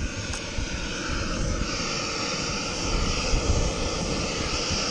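Backpacking gas stove burner running under a pot of water, a steady rushing hiss with a low rumble underneath.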